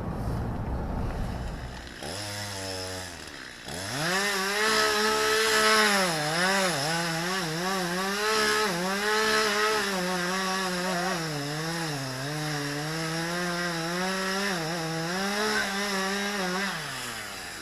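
Two-stroke chainsaw running: after a low rumble in the first two seconds, it revs up and holds high revs, the pitch dipping and recovering again and again as it works under load, then winds down near the end.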